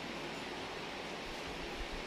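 Steady, even hiss of background noise, with a soft low bump near the end.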